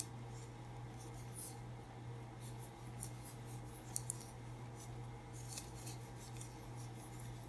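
Faint, irregular light scratches and ticks of a metal crochet hook pulling yarn through single crochet stitches, with a slightly sharper click about four seconds in.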